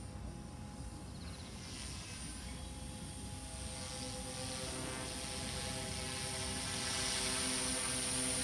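Oxy 3 electric RC helicopter in flight, its rotor and motor giving a steady hum of several tones with a high whine. The sound grows louder through the second half as the helicopter comes closer.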